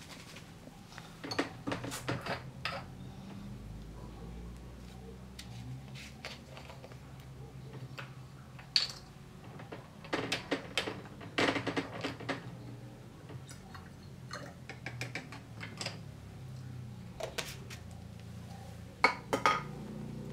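Glass laboratory bottles with plastic screw caps and a small plastic sample tube being handled on a bench: scattered clinks, taps and clicks of glass and plastic, in short clusters every few seconds, over a low steady hum.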